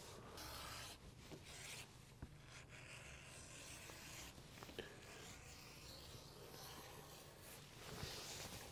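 Faint rubbing and scraping on a heavy latigo leather strap as it is worked by hand on a table, in a few short strokes near the start and near the end, with a couple of light taps between.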